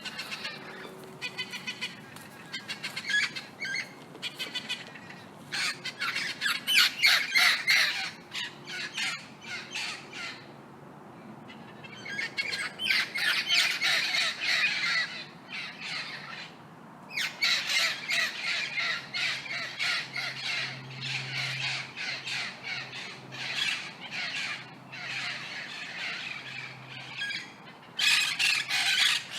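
Several parrots squawking: runs of rapid, harsh, repeated calls, broken twice by short pauses.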